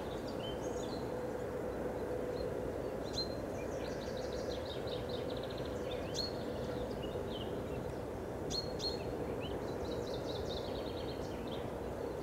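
Small songbirds singing in short trills and chirps, with a few sharp falling whistles, over a steady low background rumble.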